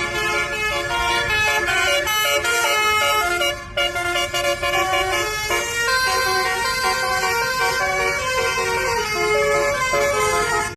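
Basuri 'telolet' multi-tone bus air horn playing a slow melody, several horn notes sounding together and stepping from pitch to pitch. It breaks off briefly just under four seconds in, then cuts off suddenly at the end.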